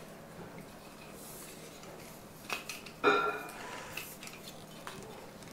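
Aluminium tripod legs and center column being handled and unfolded: a few sharp metallic clicks and clinks, the loudest about three seconds in, with a brief ring.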